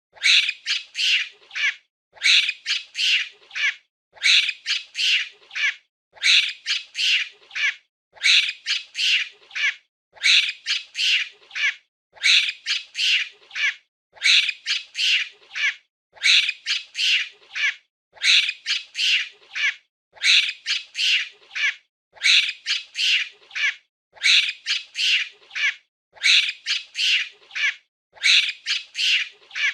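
Monkey calling shrilly: quick runs of four or five high squawking cries, the same group repeating every two seconds with short silent gaps.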